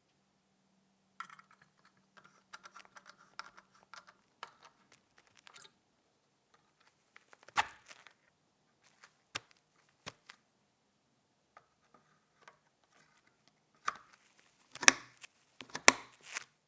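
Light rustling and small clicks while PC parts are handled during assembly, then several separate sharp clicks or knocks, the loudest in a cluster near the end.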